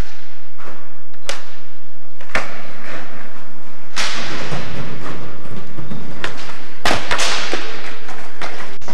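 Skateboard on a smooth concrete floor: a few sharp cracks of the board striking the ground, with a few seconds of wheels rolling in the middle and two more quick cracks near the end.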